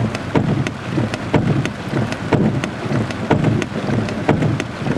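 Rain falling on a car's roof and windshield during a thunderstorm: a steady hiss with many sharp, irregular drop hits.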